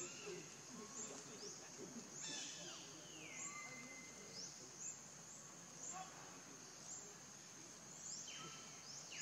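Outdoor forest ambience: birds calling with repeated short falling chirps and a couple of longer whistled notes, over a steady high insect hum.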